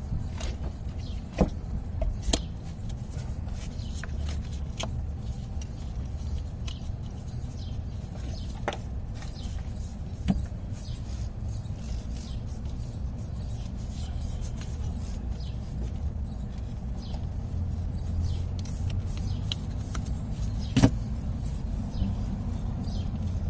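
Scattered sharp clicks and knocks of a gloved hand working parts and tools in the Honda 3.5 V6 engine bay, the loudest a little after a second in and near the end, over a steady low rumble.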